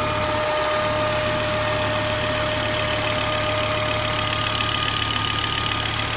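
Volvo 850R's turbocharged five-cylinder engine idling steadily, with a high steady whine over it that fades out about halfway through. This is the weird engine noise whose cause is not known.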